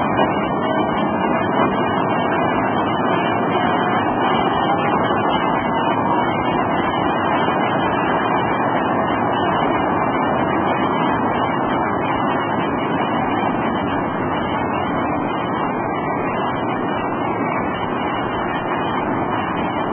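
Steady street and traffic noise at a tram junction, with a faint whine that rises slowly in pitch over the first several seconds as a tram pulls away.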